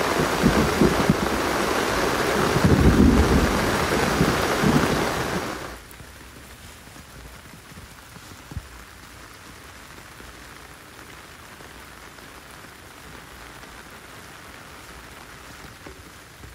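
Heavy rain pouring, with low rumbling under it in the first few seconds. About six seconds in it drops suddenly to a much softer, steady rain hiss, with a single tap a couple of seconds later.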